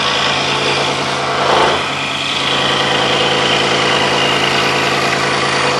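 Scroll saw running, its reciprocating blade cutting through a thick wooden block for a 3D cutout: a steady motor hum under fast, even blade strokes and the rasp of the cut. The cut briefly gets louder about one and a half seconds in.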